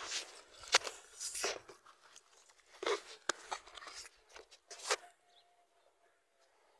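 Irregular crunching and rustling from footsteps on sandy soil and the phone being handled, with a few sharp clicks, dying away about five seconds in.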